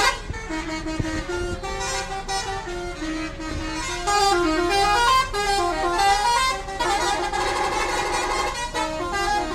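Indonesian bus 'telolet' musical air horns playing stepping melodic tunes, several sounding at once, with a fast trilling run about seven to nine seconds in.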